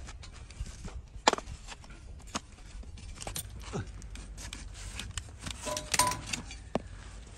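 An overgrown donkey hoof being cut and pared with a hoof-trimming blade: irregular sharp clicks and scrapes as the horn gives way, the loudest crack about a second in, and a quick run of ringing clinks near six seconds in.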